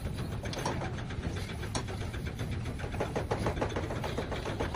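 An engine running steadily at idle, with a low hum and a fast, even ticking.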